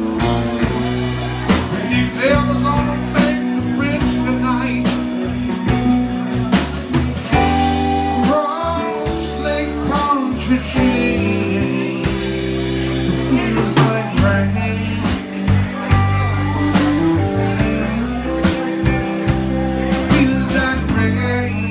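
Live band playing a blues-rock song on electric guitar, electric bass and drums, with lead lines bending up and down in pitch over a steady drum beat.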